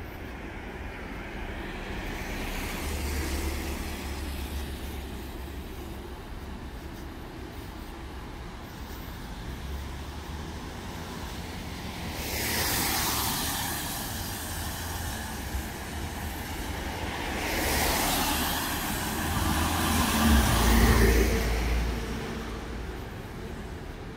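Vehicles passing one after another: a small swell about three seconds in, then louder pass-bys about halfway through and near the end. The last is the loudest, with a deep rumble.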